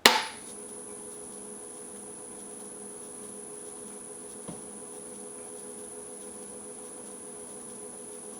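Powermatic 3520B wood lathe running forward with a steady hum and a thin high whine, after a sharp click right at the start. The lathe has a thumping that the owner traces to the rear bearing; it builds back up slowly after a reversal and is not distinct here.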